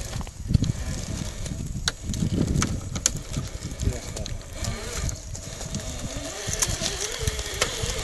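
Scale RC crawler's electric motor whining as it climbs through brush, its pitch wavering up and down with the throttle from about halfway through. Throughout there is rustling and crunching of dry brush, with sharp twig snaps.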